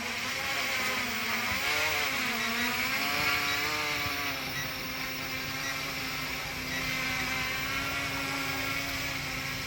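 Small GPS quadcopter drone's propellers and motors buzzing in flight, the whine dipping and rising in pitch about two seconds in as it manoeuvres, then holding a steady pitch.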